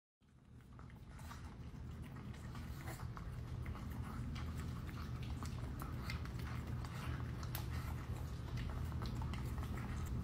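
A small hairless dog eating from a metal bowl: quick, wet chewing and mouth clicks that fade in over the first second, over a low steady hum.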